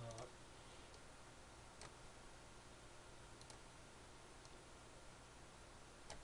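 Near silence: room tone with a faint steady low hum and a few scattered, faint mouse clicks.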